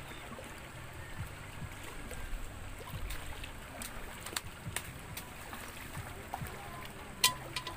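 Shallow river water trickling and splashing around a wading person, with water poured out of a metal cooking pot about halfway through. Scattered small knocks, and one sharp click near the end that is the loudest sound.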